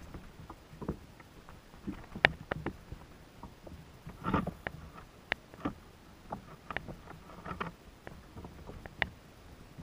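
Light, irregular knocks and ticks on a plastic sit-on-top kayak as the angler seated on it shifts and handles his gear, with a short rustling bump about four seconds in.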